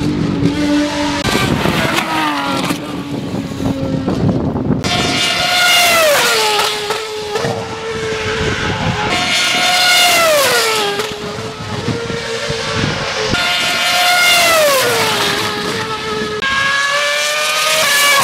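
A Renault Mégane Trophy race car's engine is heard at a distance with a lower, steadier note. From about five seconds in, a Renault Formula One car's V8 takes over, very high-pitched, its pitch sinking and then holding about four times, roughly four seconds apart.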